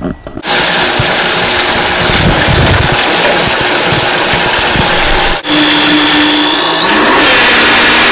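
Countertop blender motor starting up and grinding toasted dals, coconut and tamarind with water into a wet spice paste. It cuts out briefly about five seconds in, then the pitch rises near seven seconds as the speed is turned up.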